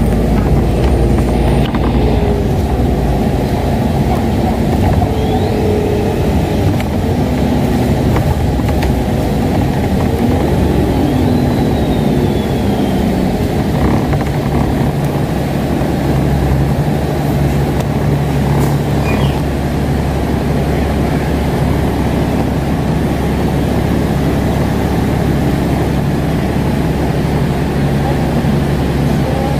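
Steady engine and road rumble heard from inside an Alexander Dennis Enviro500 MMC double-decker bus as it drives along.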